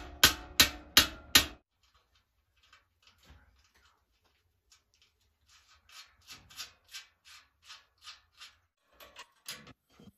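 Hand tool striking the steel shell of a propane-tank wood stove, about two ringing metal blows a second, which stop abruptly about a second and a half in. Later comes a run of light metallic clicks, about three a second, as the door-hinge nuts and bolts are fitted and tightened.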